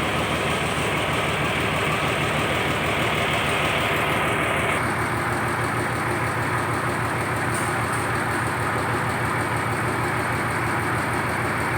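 Fishing boat's engine running steadily at a low, even drone, with a hiss over it that thins a little about five seconds in.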